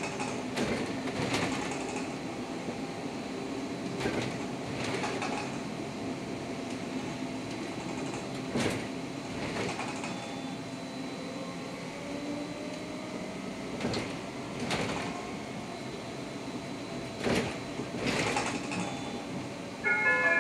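Škoda 32Tr SOR trolleybus running, heard from inside: a steady electric drive hum with a faint whine rising about halfway through, and irregular knocks and rattles from the body over the road.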